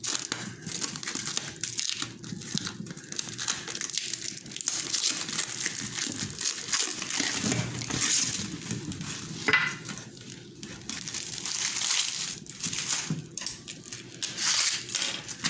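Plastic cling film crinkling and rustling as it is handled and stretched over a container, with a few sharper crackles.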